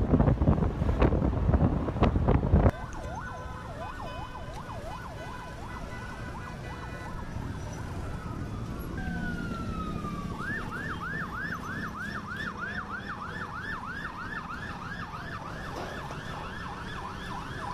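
Loud wind noise buffeting the microphone, cutting off abruptly a few seconds in. Then emergency vehicle sirens: one wails up and down, and from about ten seconds in another yelps fast, about three cycles a second.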